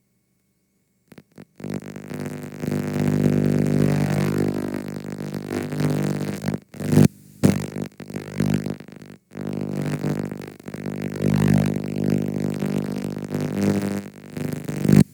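Audio from a damaged VHS tape playing back: a distorted, buzzing low drone with hiss, starting about a second and a half in and cutting out briefly a few times.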